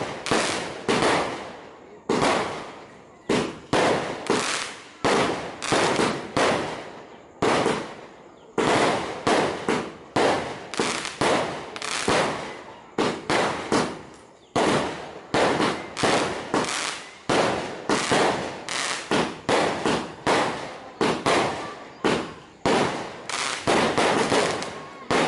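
Fireworks display: a continuous barrage of bangs, one to two a second, each sharp report fading away over about a second before the next, with a few short lulls.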